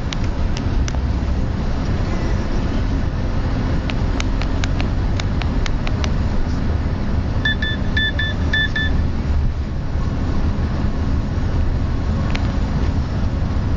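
Car driving at road speed, heard from inside the cabin: a steady low rumble of engine and tyres, with scattered sharp clicks and, about halfway through, a quick run of five short high beeps.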